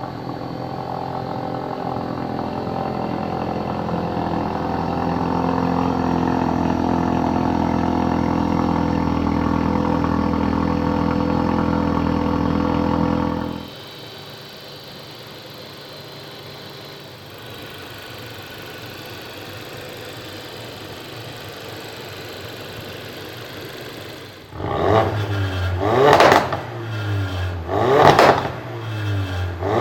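2016 Ford Focus RS's turbocharged 2.3-litre EcoBoost four-cylinder running steadily and loud for about 13 seconds, then cutting to a quieter idle. From about 25 seconds in come several short sharp revs, each rising and falling quickly.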